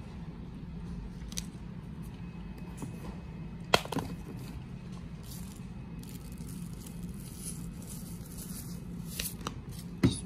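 A few sharp clicks and knocks from a plastic Tajín seasoning bottle with a flip-top cap being handled and shaken over gummy candy. The loudest come about four seconds in and near the end, over a steady low hum.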